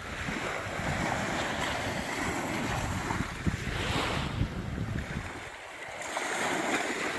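Surf washing on the beach, with wind buffeting the microphone. The wash swells and eases, softest about five and a half seconds in.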